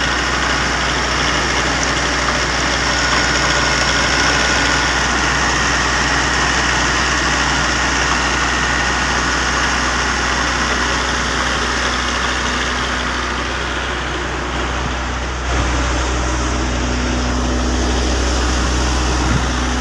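Toyota 2.0-litre 16-valve four-cylinder engine of a farm generator, fed on gas, running steadily. About fifteen seconds in, the steady low hum grows stronger.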